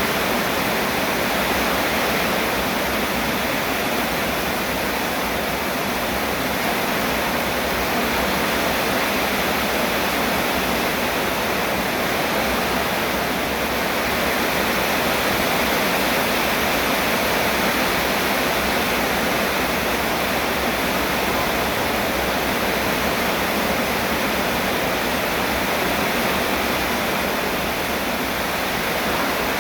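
Steady rain falling, an even hiss that stays at the same level throughout.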